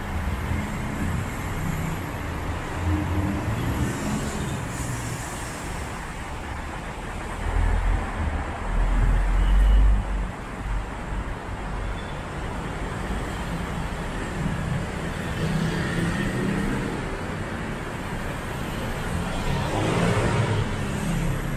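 Steady city road traffic: cars running along a multi-lane road beside the sidewalk, with a loud low rumble about eight to ten seconds in.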